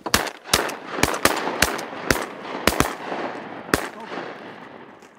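A volley of about nine shotgun blasts from several hunters firing at passing ducks, coming fast and overlapping over nearly four seconds, with echo filling the gaps between shots.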